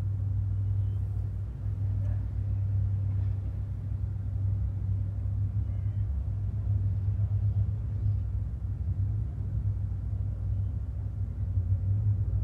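Steady low rumble of distant engines from boats and road traffic.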